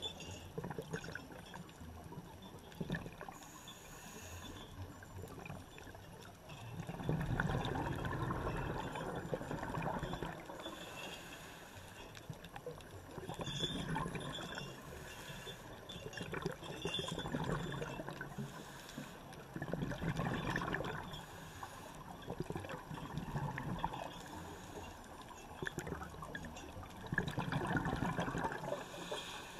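Underwater ambience of scuba exhaust bubbles: a steady bubbling hiss that swells in a burst about every three and a half seconds, as a diver breathes out through the regulator.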